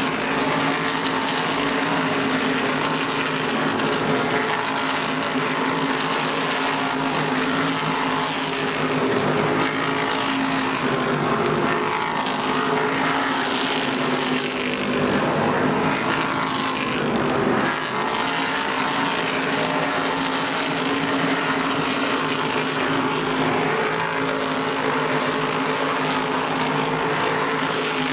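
Whelen Modified race cars' V8 engines running hard as the pack laps the oval, a steady, loud engine drone.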